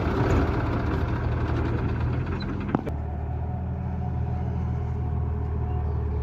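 A heavy vehicle engine running steadily, rougher and noisier at first, then settling into a smoother low hum after a sharp click about three seconds in.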